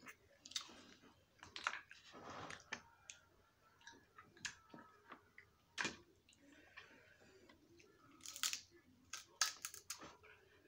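Snow crab legs being cracked and their shells picked apart by hand: a string of sharp, irregular cracks and clicks with short rustling scrapes between, the loudest cluster near the end.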